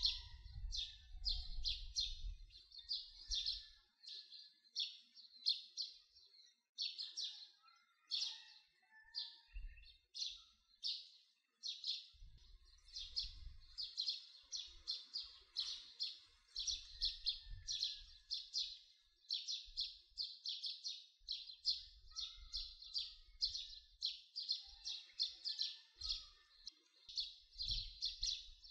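Small birds chirping: quick, high chirps following one another throughout, with occasional low rumbles underneath.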